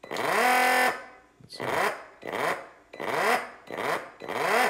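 Milwaukee M18 cordless transfer pump's motor and impeller run in about five short trigger bursts, the first held nearly a second. Each burst rises in pitch as the motor spins up and falls as it coasts down. The pump is running dry, with no hoses attached.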